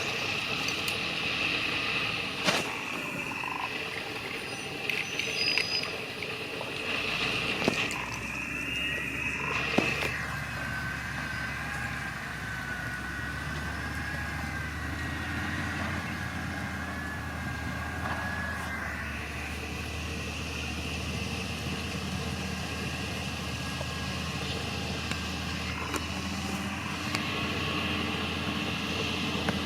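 Diesel engines of heavy earthmoving machinery and dump trucks running steadily. There are a few sharp knocks in the first ten seconds, and a thin wavering whine from about a third of the way in to the middle.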